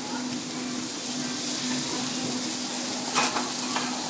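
Lobster tail, scallops and shrimp sizzling on a hot teppanyaki iron griddle, the sizzle growing louder about a second and a half in. A sharp clink a little after three seconds, and a fainter one just after.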